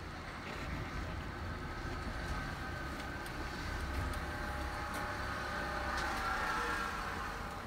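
Steady low background rumble with a faint hum. A few light clicks come from a precision screwdriver working the tiny screws of a phone's midframe.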